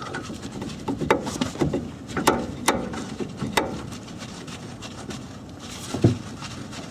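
Metal tools and a thread-locked brake caliper bolt being handled and fitted by hand, with four sharp metallic clinks in the first few seconds and a dull knock near the end.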